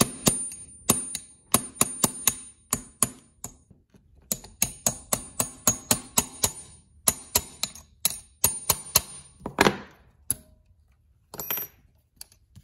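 Light hammer taps on a pin punch, metal on metal with a high ringing, driving out the small pin that holds the accelerator pump lever on a Rochester Quadrajet carburetor. The taps come about two to three a second in two runs with a short pause between, ending in one louder, longer noise near ten seconds in.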